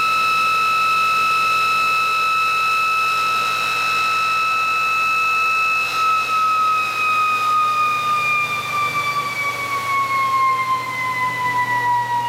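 High-pitched whine of the ReGenX prototype motor-generator spinning in motor mode at several thousand RPM. It holds a steady pitch, then about halfway through falls smoothly and steadily as the variac supplying it is turned down and the rotor slows.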